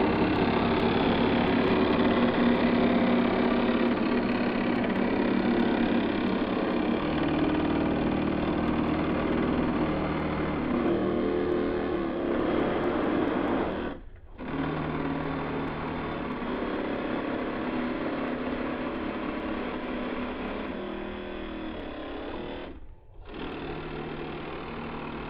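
Two small electric motors of a model boat, heard in slowed-down audio, so they run as a low, steady drone like big diesel engines. The sound drops out briefly twice, once about halfway through and again near the end.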